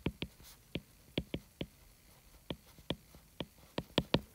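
Stylus tip tapping on a tablet's glass screen during handwriting: about a dozen sharp clicks at an uneven pace.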